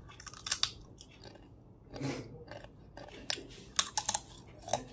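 Person biting and chewing a hard piece of clay in the mouth, with irregular sharp crunches that come thickest about three to four seconds in.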